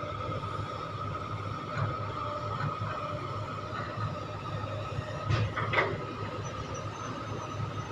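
Excavator working: its diesel engine and hydraulics run steadily with a thin whine, and two sharp clanks come about five and a half seconds in.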